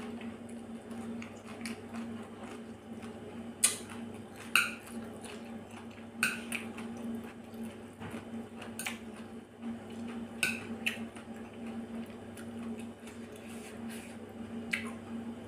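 Eating sounds: wet chewing and slurping of a shredded carrot and salmon salad, with sharp clicks of metal chopsticks against a ceramic bowl every second or two. A steady low hum runs underneath.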